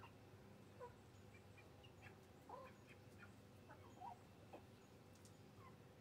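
Chickens clucking softly: faint, scattered short calls from a small flock of hens.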